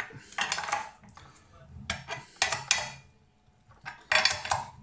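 Metal clinking and rattling as a small Allen key works the left-handed nut on a multi-tool's brush-cutter blade to tighten it, in three bursts of clinks.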